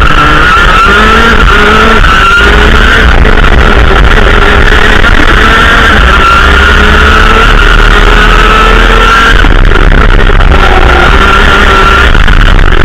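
Racing kart's two-stroke engine at full throttle, heard from an onboard camera. Its pitch climbs steadily for most of the stretch, falls sharply about nine seconds in, then climbs again, over heavy wind rumble on the microphone.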